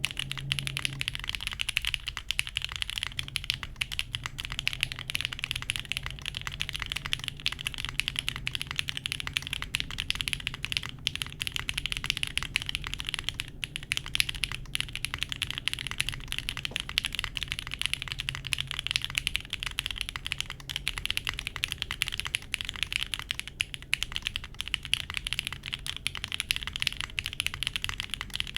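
Continuous fast typing on a Mode SixtyFive mechanical keyboard: lubed JWICK Black linear switches on an undampened POM plate in an isolated top mount, with GMK keycaps. The keystrokes run together as a dense, even clatter, broken by a couple of brief pauses.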